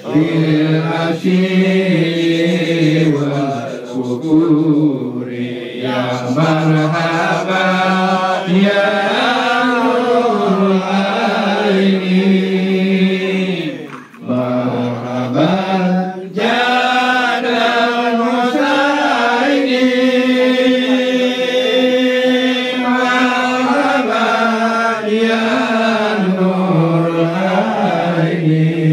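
A group of voices chanting together in long, held notes that rise and fall, breaking off briefly about halfway through before carrying on.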